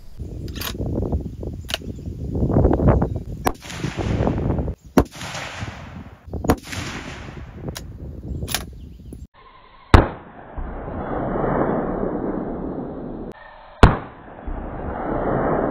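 Two sharp rifle shots from a 6.5 Creedmoor Ruger American bolt-action rifle, about four seconds apart in the second half. Before them, steady rushing noise with scattered clicks.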